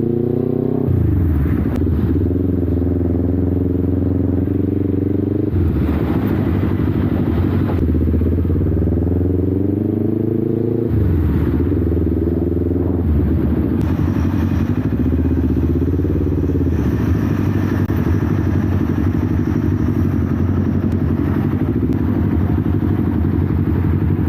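Kawasaki Ninja 400 parallel-twin engine accelerating through the gears: its pitch climbs and drops sharply at upshifts about one second, five and a half and eleven seconds in, then settles to a steady cruise. Heavy wind noise rumbles over the camera's internal microphone throughout.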